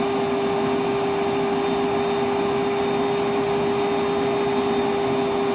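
Milwaukee M12 1.6-gallon wet/dry vacuum (0960-20) running steadily with its hose lying free and nothing drawn in, a constant one-pitch motor whine over rushing air.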